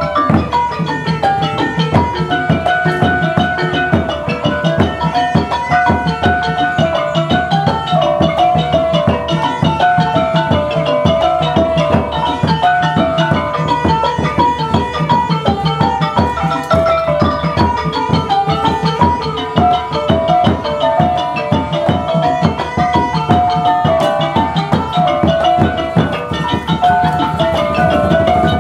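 Traditional Khmer pinpeat ensemble playing: drums and xylophones in fast, continuous strokes under a repeating melody.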